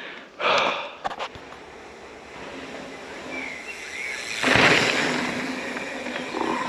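Full-suspension carbon XC mountain bike riding down a dirt trail: a rush of tyre and wind noise, with a few rattling knocks about a second in. A loud surge of rushing noise about four and a half seconds in fades slowly.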